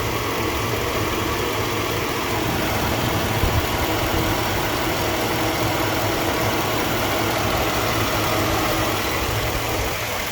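2008 Chevrolet Avalanche's V8 engine idling steadily.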